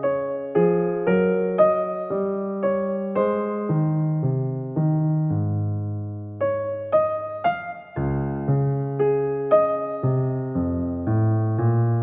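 Slow, gentle piano music: notes and chords struck about every half second over held bass notes, with a longer sustained chord around the middle.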